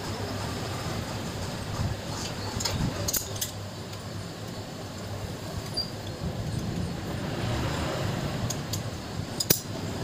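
Scattered light metallic clinks and clicks of a socket wrench and flywheel holding tool on a motorcycle engine's flywheel rotor and its centre nut, the sharpest click near the end, over a steady low hum.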